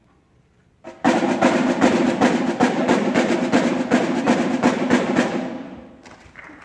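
Drums played in a loud, fast run of strokes that starts suddenly about a second in, then dies away near the end.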